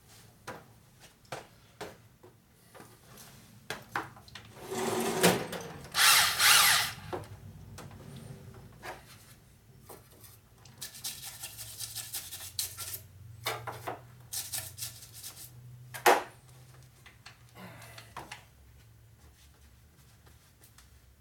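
Corded drill spinning a cylinder hone in the cast-iron bore of a Ford four-cylinder flathead block, running in several bursts with the fine-grit stones scraping the cylinder wall as the bore is finish-honed. There is a sharp knock about three quarters of the way through.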